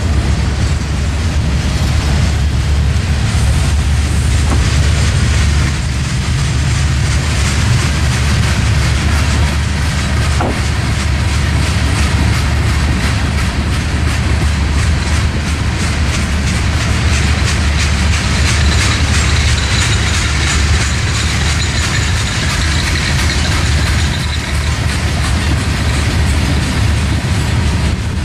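Norfolk Southern freight train rolling past: a steady low rumble with the wheels clicking over the rail joints. A faint high wheel squeal comes in briefly about two-thirds of the way through.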